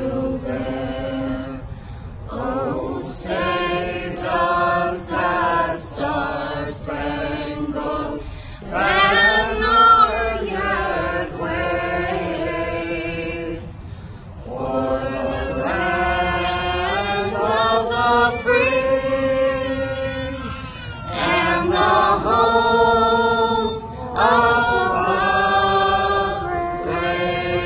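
A woman singing solo and unaccompanied through a public-address loudspeaker, in long held notes with vibrato and short pauses between phrases.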